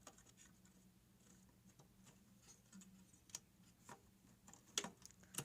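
Near silence with scattered faint clicks and taps from hands handling parts inside a desktop PC case, a few sharper ones near the end, over a faint low hum.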